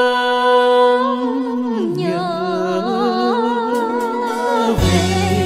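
A singer's wordless vocalise in the style of ví dặm folk song from Hà Tĩnh: a long held note, then a slow falling, wavering line with vibrato over quiet accompaniment. Fuller instrumental music with a bass line comes in near the end.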